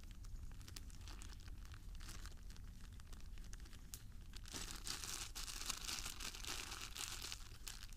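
Clear plastic zip bag crinkling and rustling as it is handled and pulled open, louder and denser for a few seconds past the middle.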